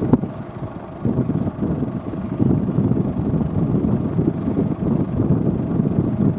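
Tractor engine running in a field, with wind buffeting the microphone.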